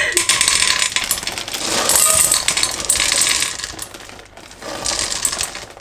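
Frozen red berries pouring out of a bag into a stainless steel saucepan, a dense rattle of many small hard clicks against the metal. It runs for about three seconds, eases, then comes again briefly near the end.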